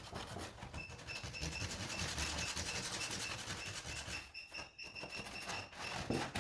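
Sandpaper rubbed by hand over wood, a continuous rasping with a couple of short breaks between strokes near the end.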